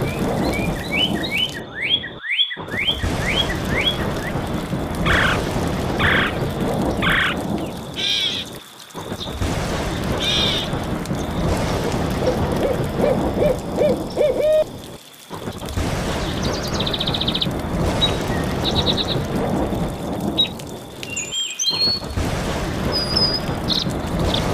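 A series of different bird calls over steady rain and thunder rumble. The calls include fast chirping runs, short trills, a run of about half a dozen low hoot-like notes rising slightly in pitch a little after halfway, and high whistles near the end. The sound drops out briefly four times as one bird's clip gives way to the next.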